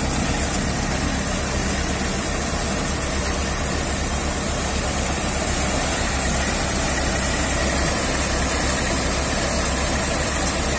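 Tractor-driven wheat thresher running steadily under load: the Eicher 380 tractor's diesel engine and the threshing drum in one continuous drone as wheat sheaves are fed in.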